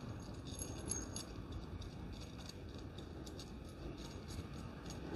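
Small steel parts clinking lightly in the hands: washers and a hex coupling nut rattling on a bolt as a brass rivet nut is threaded onto its end, a scatter of faint metallic ticks over a low background rumble.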